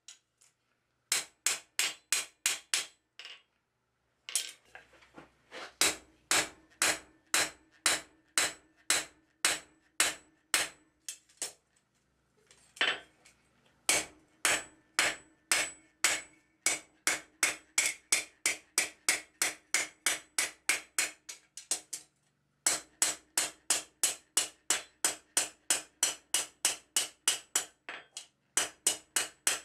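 Hammer blows on the steel pivot-pin rivet of a pair of forged dividers laid on an anvil, peening the rivet over to join the two legs. The blows come at about two to three a second in runs broken by short pauses, and each blow rings on the anvil.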